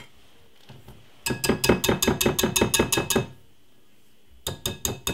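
Wire whisk beating cake batter in a glass mixing bowl, its wires clicking against the glass in a fast run of about seven strokes a second for two seconds, then a few more clinks near the end.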